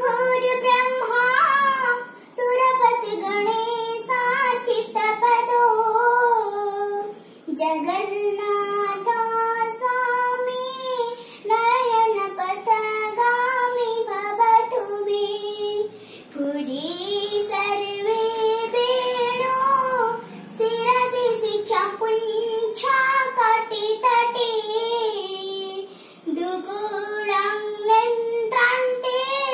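A young girl singing a prayer song unaccompanied, in long phrases with brief pauses for breath between them.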